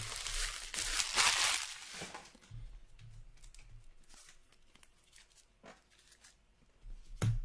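Plastic shrink-wrap being torn off a hockey card box, a loud ripping rustle over the first two seconds, then quieter crinkling as the wrapper is handled. A sharp knock comes near the end.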